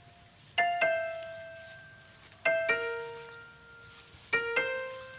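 Background piano music: slow pairs of notes struck about every two seconds, each ringing out and fading before the next.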